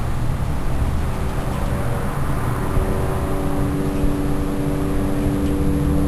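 Steady low engine-like rumble, with a steady hum joining about three seconds in.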